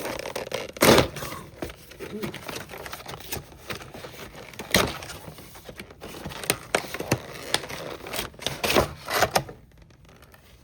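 Pokémon card packs and cards being handled: irregular crinkling, rustling and sharp clicks, the loudest about a second in.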